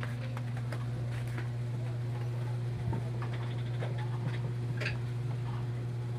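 A steady low hum with light clicks and taps scattered through it.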